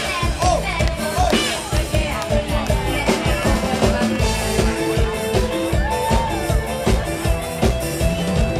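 Amplified live mor lam band music: a drum kit keeping a steady beat under a woman singing the melody into a microphone.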